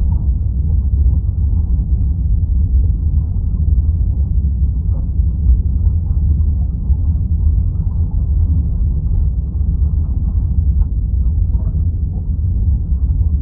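Steady, muffled low rumble of underwater ambience, with no distinct events.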